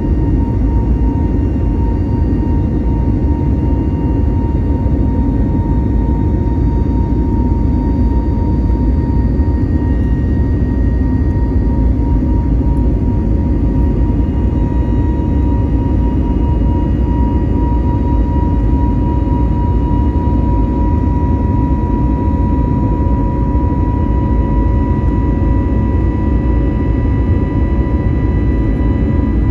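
Airbus A321neo's CFM LEAP-1A jet engines heard from inside the cabin: a steady low roar with a constant tone that climbs very slightly in pitch.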